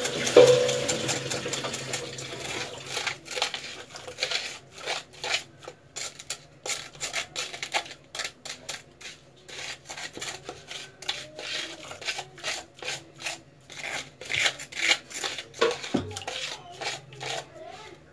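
A plastic spoon scooping ground sugar from a plastic tub and tapping on the rim and the blender jar: a run of irregular light scrapes and clicks.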